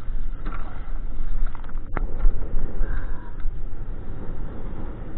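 Wind rumbling on the microphone over sea water splashing against the side of a small boat as a hooked mahi-mahi is brought in, with one sharp knock about two seconds in.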